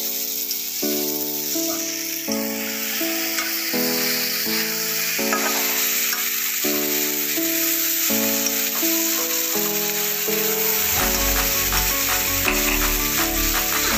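Background music, a melody of held notes that is joined by a bass line and a beat about eleven seconds in, over the steady sizzle of diced vegetables frying in a metal kadai as a spatula stirs them.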